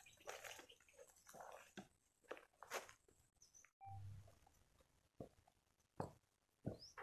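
Near silence with faint, scattered rustles and clicks.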